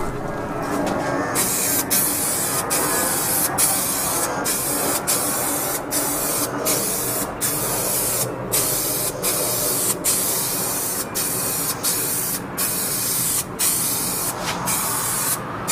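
Aerosol spray-paint can hissing as paint is sprayed in short passes of about a second each, with brief breaks between them. The spraying starts about a second in.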